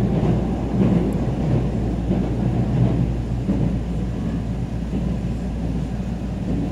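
Tokaido Shinkansen train running at speed, heard inside the passenger cabin: a steady low rumble of wheels on rail and running noise.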